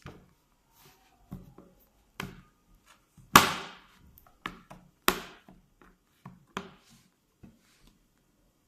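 A series of irregular sharp slaps and knocks, about a dozen, the loudest two about three and a half and five seconds in: sticky homemade slime being hit and worked roughly in its dish.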